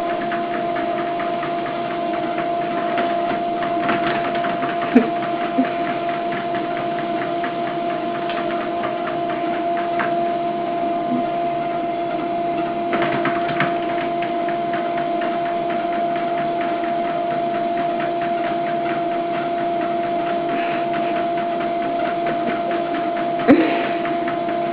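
A small machine running steadily: a constant hum under a fast, rattling clatter, with a few louder knocks.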